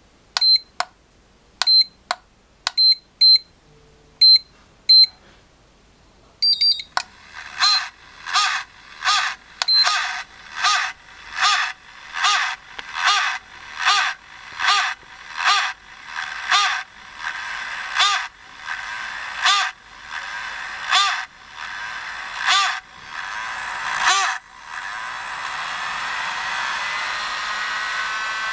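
A few short high electronic beeps from the Turnigy Accucell-6 charger, then its cooling fan starts with a strange pulsing noise whose pulses come less and more slowly, until about 25 seconds in it settles into a steady whir that rises in pitch as the fan spins up.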